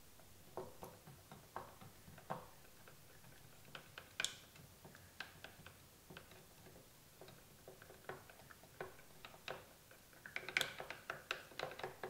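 Faint, irregular clicks and knocks from stirring: a wooden stick tapping the inside of a metal tin that sits in an ice-water bath, with ice cubes clinking against the tin. A single louder knock comes about four seconds in, and a quick run of clicks comes near the end.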